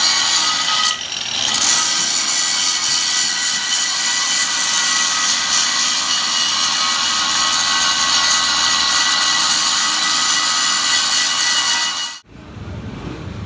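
Electric angle grinder grinding steel around the centre hub of a tractor wheel plate: a steady high whine over a harsh grinding hiss. It eases off briefly about a second in and cuts off suddenly near the end.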